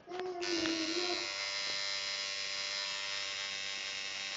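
Coil tattoo machine buzzing steadily as it needles ink into skin. It cuts back in less than half a second in, after a brief stop.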